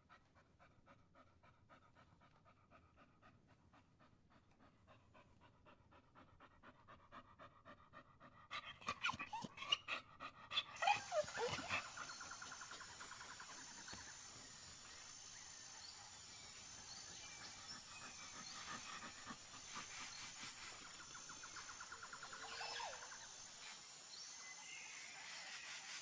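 Dogs panting in a fast, even rhythm that grows louder, with a few loud whimpers falling in pitch about ten seconds in. After that come occasional short whines over a steady high chirping of insects.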